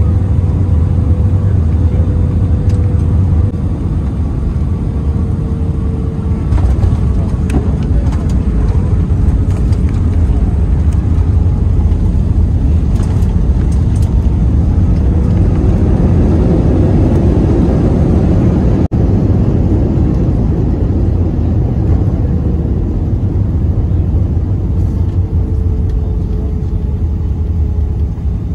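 Cabin sound of an Airbus A320's landing roll: a loud, steady rumble from the engines and the wheels on the runway, with a faint engine whine. The engine noise swells a little past the middle, then eases off as the jet slows.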